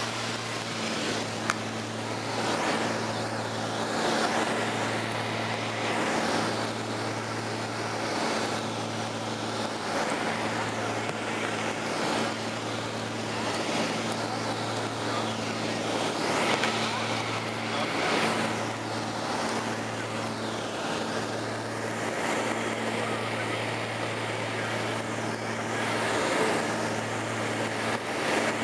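Aircraft cabin noise in flight: a steady low engine drone with a rush of air over it that swells and fades about every two seconds.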